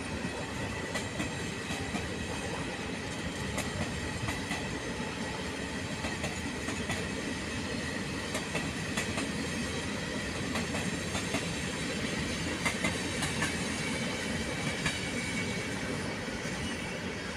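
Regional passenger train of coaches rolling past at slow speed: a steady rumble with scattered clicks of wheels over rail joints and points, and a faint high wheel squeal.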